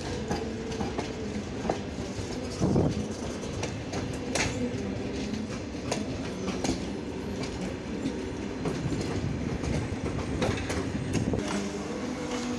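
Passenger coaches rolling past at low speed, their wheels clicking and knocking over rail joints at irregular intervals, with the loudest knock about three seconds in.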